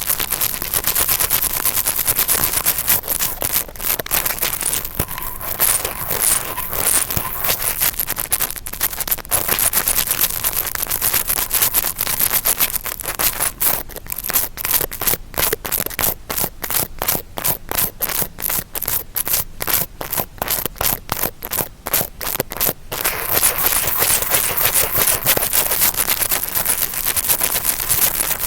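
Interdental brush scratching and rubbing in fast strokes to imitate ear cleaning. Dense continuous scratching breaks into a run of separate quick strokes about halfway through, then goes back to continuous scratching near the end.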